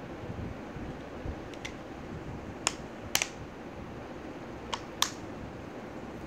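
2.5-inch external hard drive case clicking as its shell is pressed shut around the drive: a faint click, then two pairs of sharp clicks in the second half.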